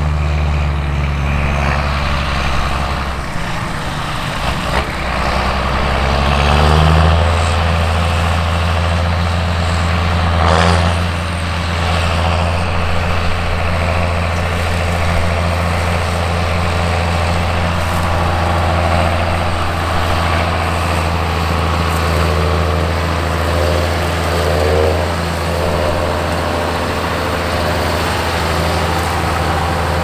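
John Deere tractor engine under load pulling a loaded grain trailer over stubble, a steady low drone whose pitch rises about six or seven seconds in. A brief noise about ten seconds in.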